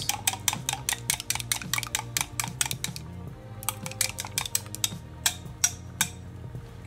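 Raw eggs being beaten in a glass measuring jug with a wooden utensil: quick, even clicks of wood against glass, about seven or eight a second, thinning out to a few separate knocks about halfway through and stopping near the end. Background music plays underneath.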